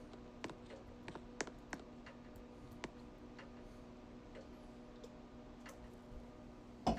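Ceiling fans with broken blades and snapped blade arms running on medium speed: a steady hum with scattered, irregular ticks and clicks, and one louder knock near the end.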